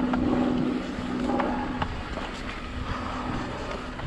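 Shimano Steps E8000 mid-drive e-bike motor whining steadily under pedal assist. The whine fades about a second in and comes back near the end, with a few sharp clacks from the bike over rough trail and a low rumble throughout.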